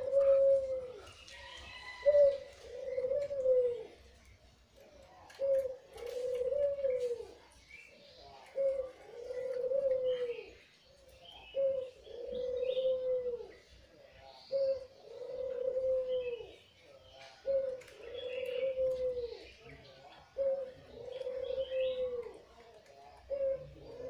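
Red-eyed white Barbary dove (puter putih) cooing, about eight times, once every three seconds. Each coo is a short note followed by a longer, arching note that drops at the end.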